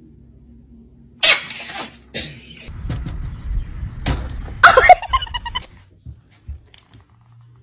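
A sudden loud noisy burst about a second in, then a stretch of scuffling and knocks, and a short high cry from a cat, the loudest sound, a little before five seconds in.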